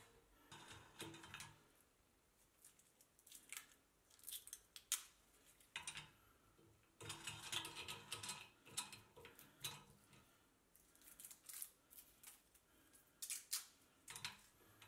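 Faint crinkling and small clicks of clear protective plastic film being peeled off a standing desk's steel foot, busiest about halfway through.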